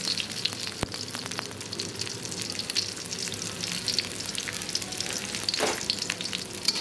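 Sliced shallots and garlic sautéing in hot oil in a wok: a steady sizzle made of many fine crackles.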